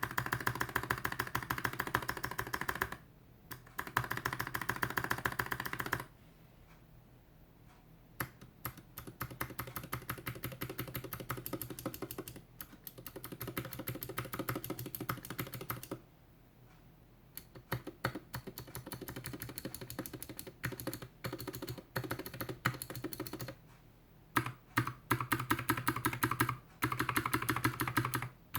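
Clicky Gateron Milky Blue mechanical keyboard switches being typed on fast, in dense bursts of keystrokes broken by short pauses, on a GK61X board with a stainless steel plate, plastic case and DSA keycaps.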